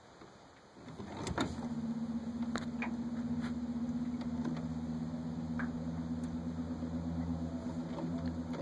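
A small electric motor runs with a steady low hum, switching on about a second in and cutting off abruptly near the end, with a few faint clicks over it.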